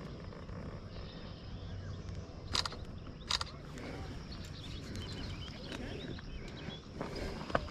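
Quiet pond-side outdoor ambience with faint bird chirps, broken by two short sharp clicks about two and a half and three and a half seconds in.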